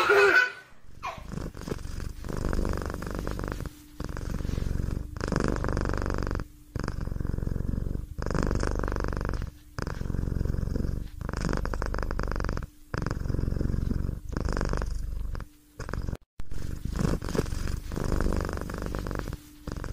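Cat purring in a steady run of breaths, each purr lasting about a second and a half with a short break between.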